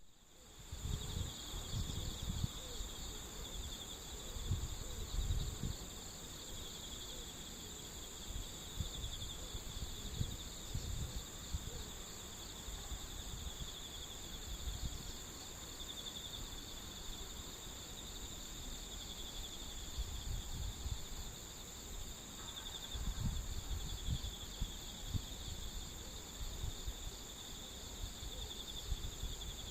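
A chorus of singing insects: a steady, high-pitched, finely pulsing trill that never stops, with fainter higher tones above it. Irregular low rumbles come and go underneath.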